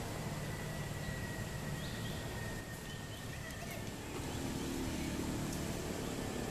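Steady outdoor background noise with a low rumble and a few faint, short high chirps around the middle.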